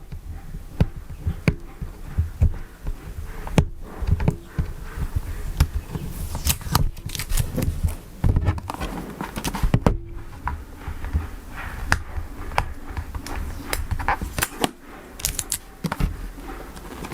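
A cardboard tablet box being handled and its sealing tape worked open: scattered taps and knocks with a few short scraping rustles.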